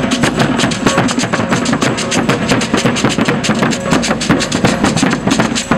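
Percussion-led music playing a fast, dense, steady beat of drums and hand percussion, of the kind used for coco de roda dancing.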